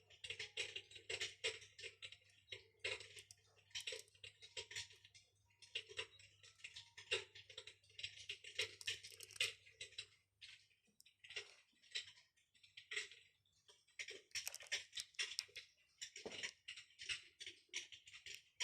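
Electric fireplace's simulated wood-fire crackle: irregular clusters of small pops and crackles. A faint low hum runs under it and stops about halfway through.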